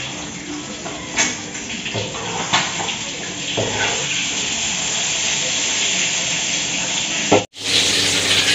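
Oil sizzling in a steel wok as eggs fry, a steady hiss with several short clinks of a metal spatula against the wok. The sound cuts out for a moment near the end and a steady hiss resumes.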